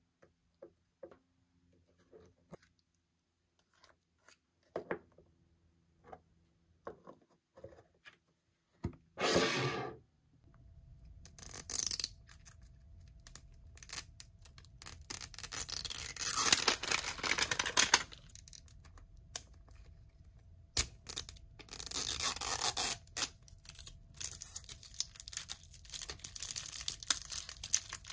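Toy packaging being opened by hand: a few light taps and clicks at first, then from about ten seconds in, tearing and rustling of the packaging that goes on in loud stretches.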